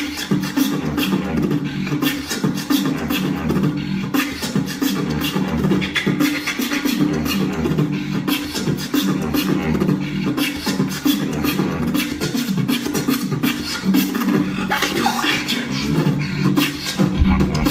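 Solo human beatboxing: a fast, dense run of mouth-made drum hits and clicks over a held, hummed low tone and a steady low pulse.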